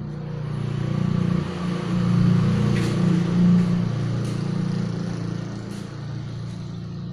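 A motor engine running steadily, growing louder over the first few seconds and then slowly easing off, with a few faint clicks.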